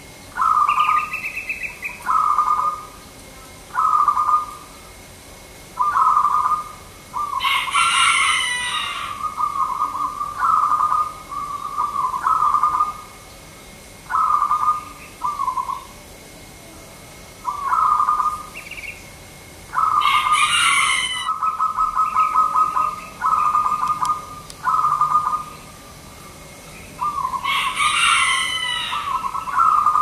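Zebra dove (perkutut) cooing: short trilled coos about every second or two, running into longer rolling phrases in the middle and near the end. A louder, higher-pitched call from another bird cuts in three times.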